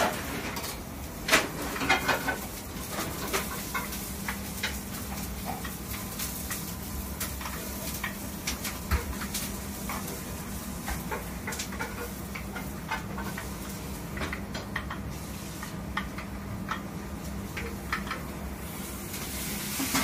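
Skewered eel grilling over a charcoal grill: a steady sizzle with many scattered crackles and pops, over a steady low hum. A couple of louder knocks come about one and two seconds in.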